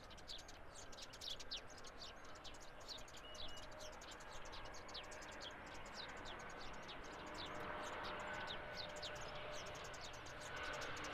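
Small birds chirping rapidly, many short falling chirps a second. From about halfway the faint, steady whine of an approaching jet airliner's engines, an Embraer E190 on landing approach, grows slowly underneath.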